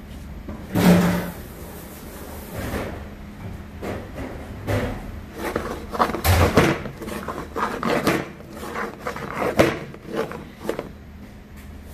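A very large frying pan shaken and slid about on a gas burner grate to toss stir-frying zucchini, onion and dried shrimp: irregular scraping and clanking. It is loudest about a second in and comes thick and fast from about halfway on.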